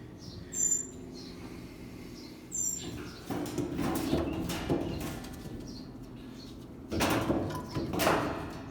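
A bird gives two short high chirps, then flaps its wings in a series of rustling bursts, the loudest near the end; a bird is agitated and fluttering about.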